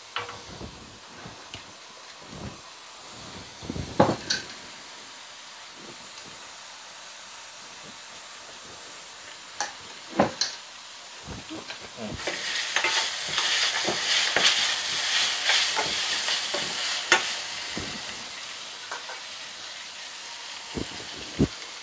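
Mutton and onions frying in a stainless steel pan, a steady sizzle that grows louder from about twelve seconds in for several seconds. A stirring utensil knocks and scrapes against the pan now and then.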